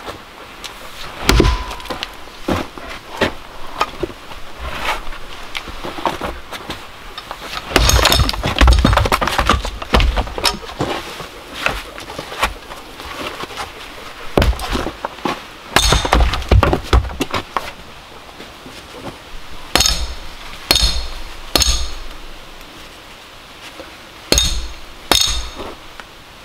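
Axe work at a wooden chopping block: irregular chopping strikes and split pieces of firewood knocking and clattering together. Near the end come several sharp strikes with a ringing edge.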